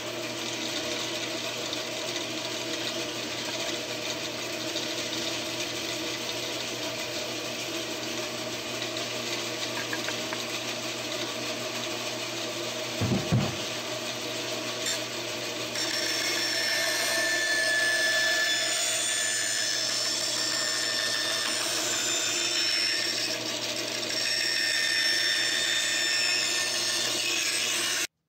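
Bandsaw motor and blade running with a steady hum. From about halfway, the blade is cutting through a wooden board and a higher whine sits over the motor. There is one short, louder sound a little before that, and the sound cuts off abruptly just before the end.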